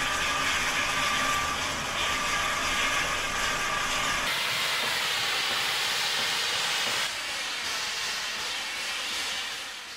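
Oil burner firing in a steam locomotive's firebox on waste vegetable oil: a steady roar of flame with a low rumble. About four seconds in the rumble drops away, leaving a steady hiss that steps down again near seven seconds and fades out at the end.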